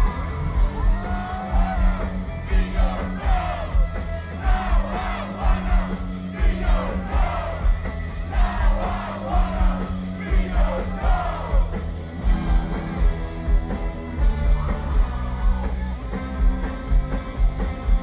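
Live rock band playing loud through a concert PA: a heavy, steady drum and bass beat under electric guitars, with a man's voice singing and wailing in gliding lines over it for much of the time.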